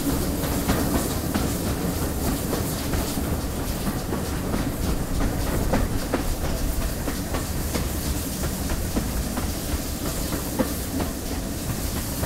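GWR Collett Goods 0-6-0 steam locomotive running along the line, heard from the side of the engine: a steady rumble with many quick clicks of the wheels over the rail joints.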